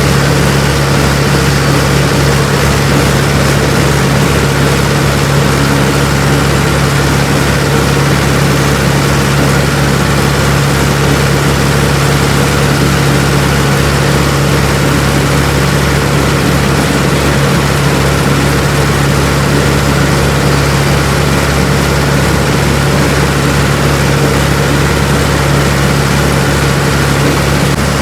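Tractor engine running steadily at a constant speed, with a strong low drone and no revving.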